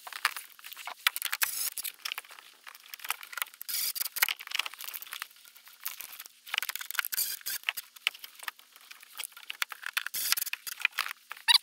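Hands handling wires and crimp terminals at an electrical breaker panel: a dense, irregular run of small clicks, scrapes and rustles.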